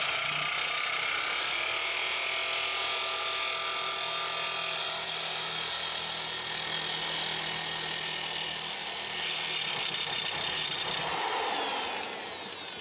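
Mid-torque impact wrench spinning a lawnmower-blade sharpening stone against a Scag mower blade: a steady grinding whine that tapers off near the end. The stone bounces around and cleans up the blade's face rather than its edge.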